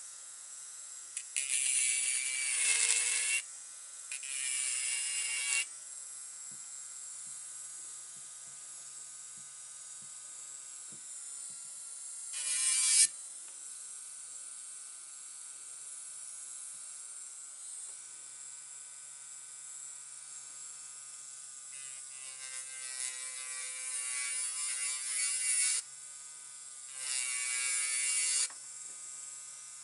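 Electric nail file (e-file) running with a steady whine, its bit grinding against a nail tip in five louder bursts of rasping, one of them short and sharp about halfway through.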